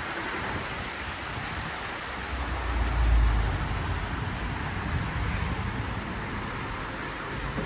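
Hitachi Urban Ace HF machine-room-less traction elevator: a steady rushing noise with a low rumble that swells to its loudest about three seconds in.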